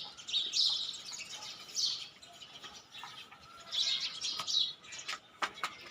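Small birds chirping: three short, high phrases a second or two apart. A couple of sharp clicks come near the end.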